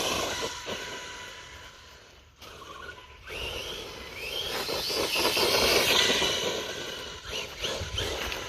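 Axial Ryft RC truck's brushless electric motor and drivetrain whining as it drives, fading briefly, then climbing in pitch and loudness from about three seconds in as the truck speeds up, before easing off near the end.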